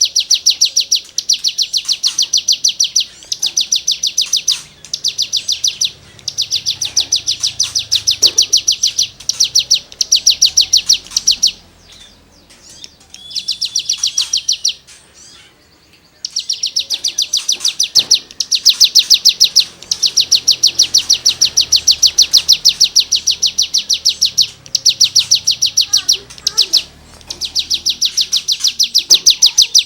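A cigun giving its rapid, high rasping trill over and over in runs of one to a few seconds, with short breaks between them and two longer pauses about twelve and fifteen seconds in; the longest unbroken run comes in the second half.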